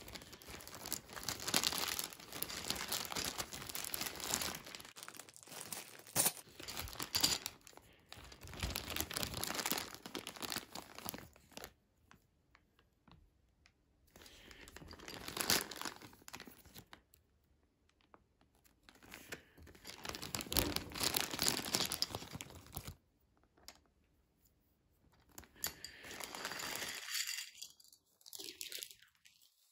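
Thin clear plastic bag crinkling and rustling in the hands as it is opened and the green plastic spiral track pieces are taken out, in bursts with short quiet gaps between them.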